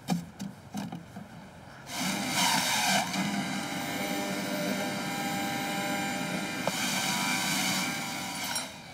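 Electric Juice Master Professional juicer starting about two seconds in and running steadily as apple pieces are pressed down its chute and ground to juice, then switching off near the end. A few sharp knocks come before it starts.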